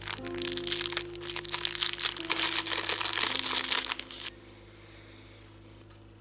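Small clear plastic bag crinkling as it is handled between the fingers, dense and crackly for about four seconds, then stopping abruptly. Soft background music runs underneath.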